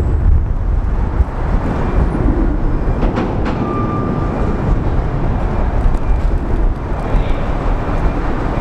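Railcar mover's diesel engine running with a steady low rumble as it creeps along the rails towing retired subway cars. A short high squeal a little over three seconds in.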